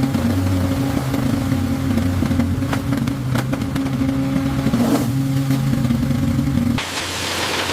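An engine running steadily with a low hum, giving way about seven seconds in to a rushing hiss.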